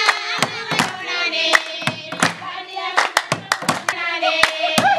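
Group of women singing together to their own hand clapping, about two claps a second.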